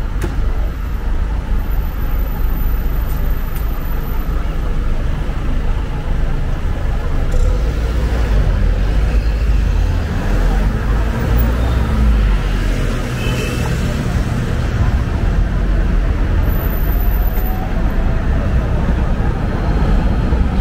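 City street traffic: a steady rumble of cars passing, with a tram drawing alongside near the end.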